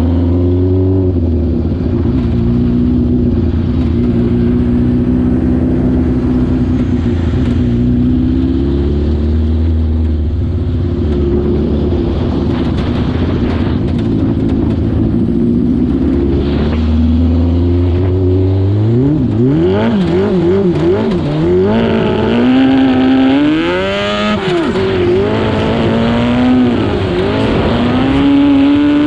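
Yamaha R6 600cc inline-four engine idling steadily, then revved repeatedly from about two-thirds in, its pitch swinging sharply up and down before holding higher near the end.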